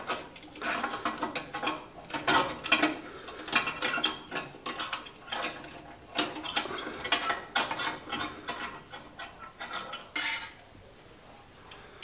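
Light metallic clinking, tapping and scraping inside a gas furnace's burner compartment as the flame sensor is worked loose and pulled out of the burner assembly. The irregular clicks stop about ten seconds in.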